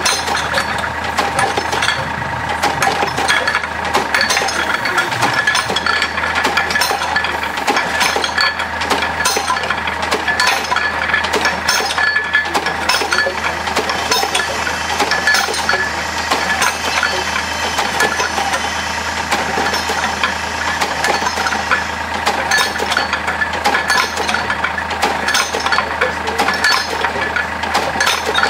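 Nordmeyer GTB-2000 cable percussive drilling rig at work: a steady engine hum under continual metallic clinking and rattling from the rig's drilling gear.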